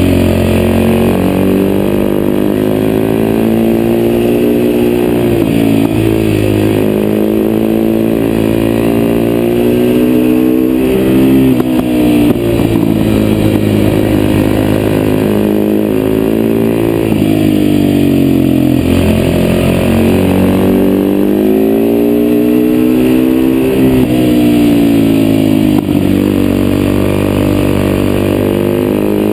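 Husaberg FS570's single-cylinder four-stroke engine through an FMF exhaust, heard from the rider's chest, under way with the revs climbing and falling back again and again as the bike accelerates and slows through the bends.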